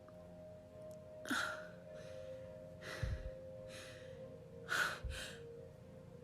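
A woman's short, breathy gasps, four or so spread over several seconds, as a sneeze builds but does not come.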